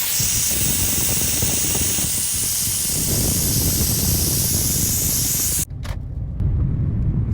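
Compressed air hissing steadily from an air hose into a car tyre as it is inflated from nearly flat after a plugged nail puncture, cutting off abruptly about five and a half seconds in. Low rumbling noise follows.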